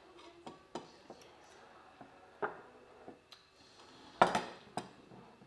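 Plates and a spoon clinking and knocking on the table as food is picked up by hand and a plate is moved, a scatter of short clatters with the loudest about four seconds in.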